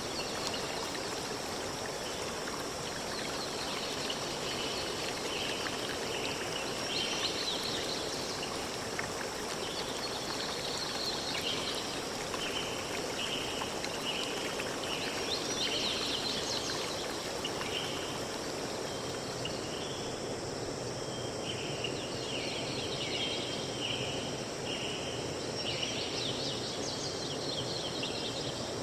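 Forest ambience: birds chirping over a steady rushing noise, one bird repeating a short note about once a second through the middle.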